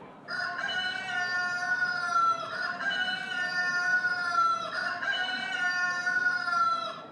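Rooster crowing three times in a row, each crow about two seconds long and dipping slightly in pitch at its end.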